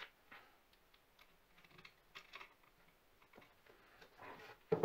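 Faint clicks and rustling of hands handling wires and plugging connectors into a model submarine's electronics frame, with a sharper knock near the end.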